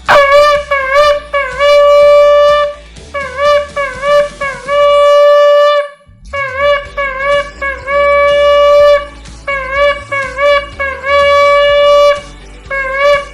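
Shofar blown in repeated sets: a run of short blasts, each with a slight dip in pitch, ending in a longer held note. A brief pause comes about six seconds in before the pattern starts again.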